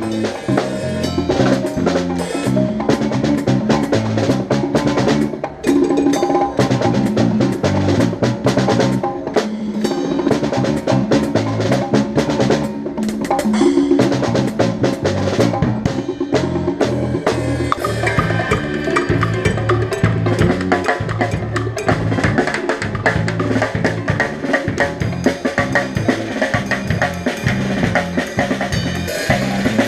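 Music with a prominent drum kit, snare and bass drum playing a busy rhythm over a bass line.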